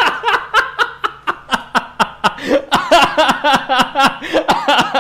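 A man laughing hard and without a break, in quick repeated bursts of about four or five a second.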